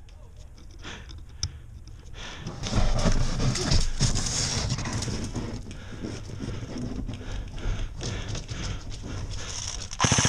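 Footsteps crunching through snow, with clothing and gear rustling as a player moves. About ten seconds in, an airsoft electric rifle fires a loud burst on full auto.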